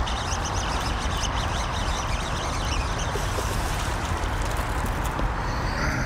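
Steady rumble of traffic on the concrete road bridge overhead, with small birds chirping.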